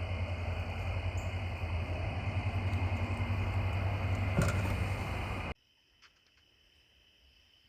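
A motor running steadily with a low, slightly pulsing hum, like an idling engine or generator, over steady insect chirping. It cuts off suddenly about five and a half seconds in, leaving faint crickets.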